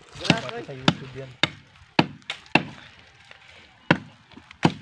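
Machete blade chopping into the base of a standing tree trunk: sharp wooden thwacks about every half second, a pause of over a second, then a couple more strikes near the end.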